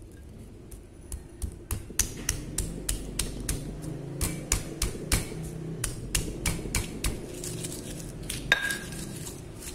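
Stone pestle (ulekan) pounding and crushing whole shallots in a stone mortar (cobek): a rapid run of stone-on-stone knocks with dull thuds, about four a second.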